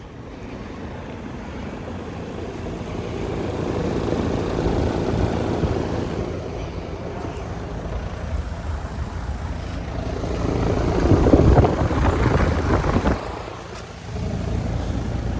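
Outdoor unit of a 2014 Maytag two-ton heat pump running: a steady fan whoosh over a low hum, swelling louder about two-thirds of the way through.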